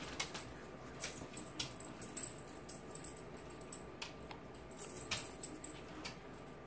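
Faint, scattered light clicks and taps from hands working a crumbly dough in a plastic tub and setting rolled balls onto a parchment-lined sheet pan.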